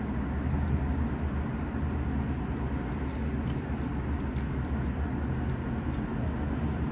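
A steady low rumble with a few faint clicks over it. A thin, faint high steady tone comes in near the end.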